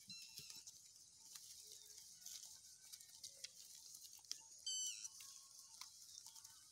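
Sheep grazing close by, tearing and chewing grass in soft irregular clicks, over high bird chirping. A short, higher-pitched bird call just before the five-second mark is the loudest sound.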